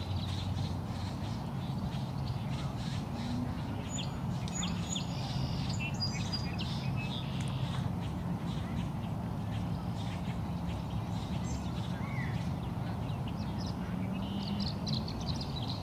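Several birds calling, short high calls and chirps scattered throughout, over a steady low hum.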